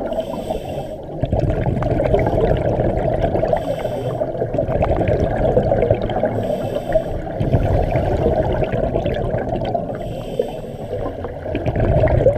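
Underwater scuba breathing: a regulator hissing in short breaths about every three seconds over a steady rush and gurgle of exhaled bubbles, during a drill of removing and replacing the regulator while exhaling.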